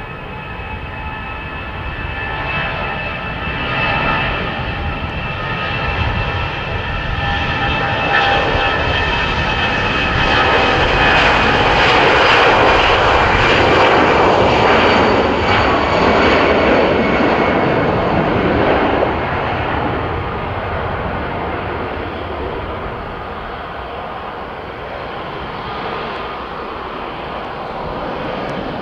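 Airbus A320-family twin-engine jet airliner on its take-off run at full power. A whine of several tones sits over a roar that swells to its loudest about halfway through as the jet passes, then eases as it climbs away.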